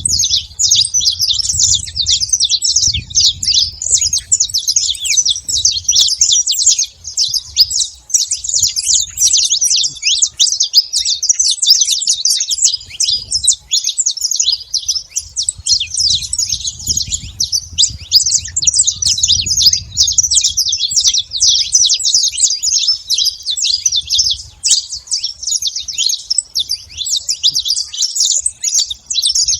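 A flock of saffron finches (canário-da-terra) chirping and calling all at once in a dense, continuous chatter of short high notes. A low rumble comes and goes underneath.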